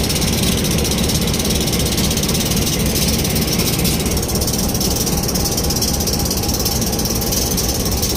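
Pakistan Railways RGE-20 class diesel-electric locomotive running steadily under power as the train pulls away, heard close up alongside its engine hood.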